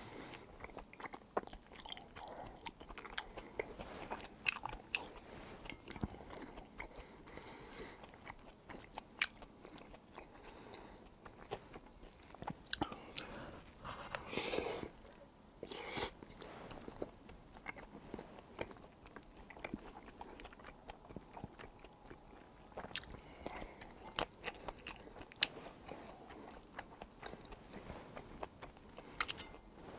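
Close-miked chewing and biting of tteokbokki (stir-fried rice cakes): a steady run of wet mouth clicks and chews, with a few louder bites about halfway through.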